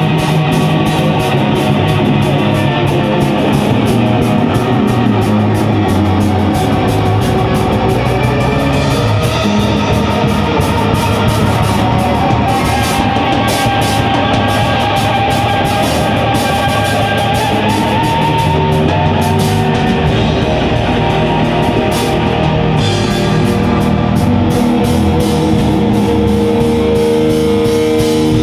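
A live rock band playing loudly: guitars over a drum kit, with no break.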